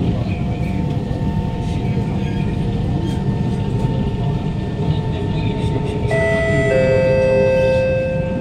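Interior of a Kawasaki Heavy Industries C151 motor car with a GTO-VVVF inverter: a steady running rumble of the train on the rails, then about six seconds in the traction motor whines in, with several steady high tones at once and a rise in loudness that eases off near the end.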